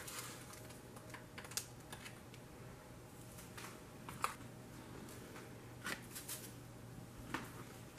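Faint, scattered small clicks and taps of a measuring spoon against a plastic spice jar and freezer bags as chili powder is spooned into the bags, over a faint steady low hum.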